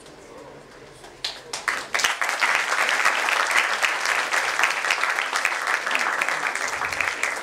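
Audience applauding: a few scattered claps about a second in, quickly swelling into steady, dense applause from a large crowd.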